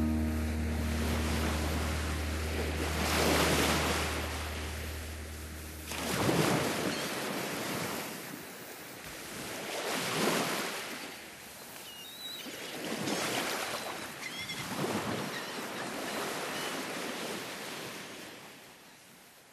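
Ocean surf washing in, a swell of waves every two to three seconds that ebbs between them, fading away near the end. A low held tone dies out about six seconds in.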